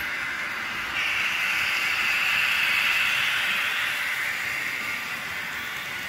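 Model freight train rolling past on the layout's track: a steady rushing hiss of wheels and motor that suddenly gets louder about a second in, then slowly fades over the last seconds.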